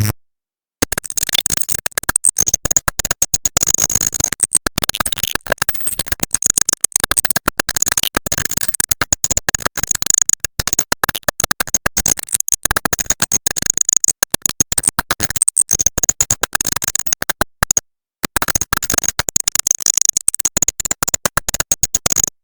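AI-generated glitch noise from the KinLab sound generator: a fast, stuttering crackle of dense clicks and chopped fragments with a hissy high edge, dropping out briefly near the end.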